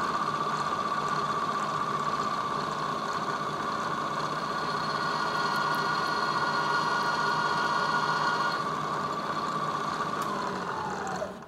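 Lagun milling machine spindle running with a steady whine while a freshly resharpened number 7 drill bit drills into aluminum; the resharpened bit is cutting. Near the end the spindle is switched off and its whine falls in pitch as it winds down.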